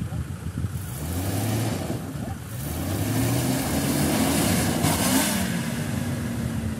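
Off-road jeep's engine revving hard under load, its pitch rising and falling in several surges as it works the vehicle up out of a muddy stream crossing.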